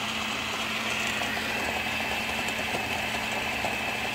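Countertop glass-jar blender running steadily with a high whine, puréeing a thick creamy sauce.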